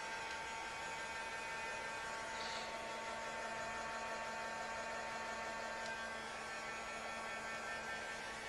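Steady electrical hum: several constant tones over a low hiss, with only a faint brief sound about two and a half seconds in.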